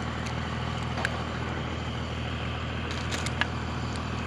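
A motor vehicle engine at a boat launch running with a steady low drone. A few faint clicks sound about one second in and again around three seconds.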